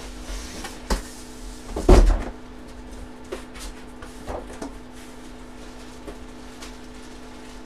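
Handling noises: a few sharp clicks and knocks, with one louder thump about two seconds in, over a faint steady hum.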